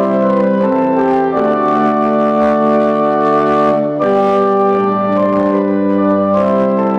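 Pipe organ playing the closing postlude: loud, full sustained chords that move to a new chord every second or so.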